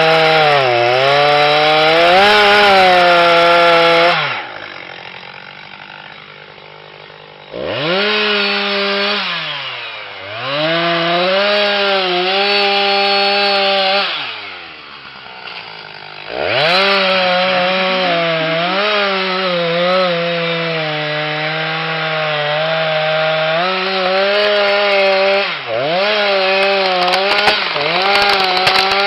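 Chainsaw running at full throttle while cutting, its high engine note sagging and recovering as it bogs in the wood. Twice it drops away for a few seconds, then comes back up to speed.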